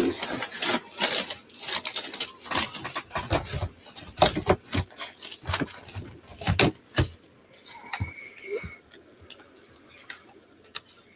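Paper rustling and scratching as hands press and handle a small woven piece of paper strips on a desk mat. It is busy with many quick scrapes and clicks for about seven seconds, then thins to a few scattered clicks.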